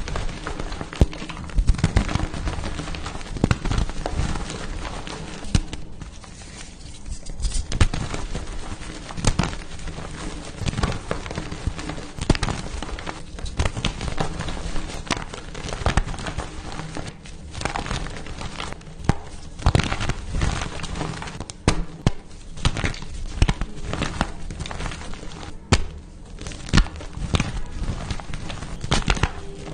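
Pasted (reformed) gym chalk blocks being crushed by hand, with dense, gritty crunching and crackling and many sharp snaps as the blocks break and crumble.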